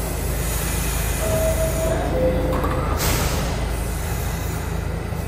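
R68 subway train standing at the platform with a steady low rumble; its two-note falling door chime sounds a little over a second in. About three seconds in comes a short sharp hiss of air as the doors close and the train gets ready to leave.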